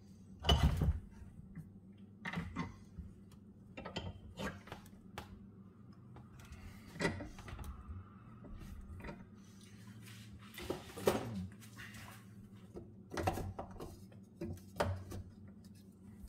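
Scattered knocks and clanks of a steel riding-mower deck height lever being worked and bent in a bench vise, irregular rather than rhythmic, the loudest about half a second in and again about eleven seconds in.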